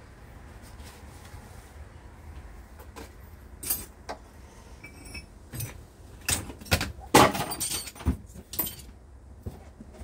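Metal parts and hand tools being handled: scattered sharp clicks and knocks, with a rattling cluster of clinks about seven seconds in, over a low steady rumble.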